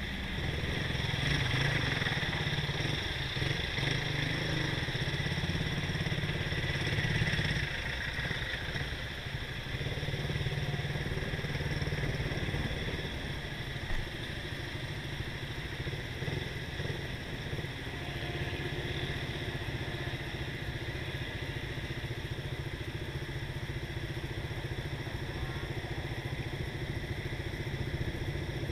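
Motorcycle engine running steadily at low speed in street traffic, a little louder for the first seven or eight seconds, then easing off as the bike slows.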